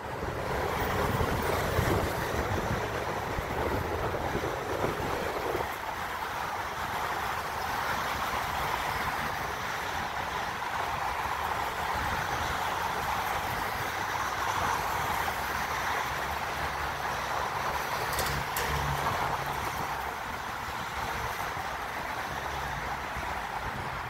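Steady traffic noise on snowy city streets: a continuous hiss of tyres over a low engine rumble, easing slightly about five seconds in.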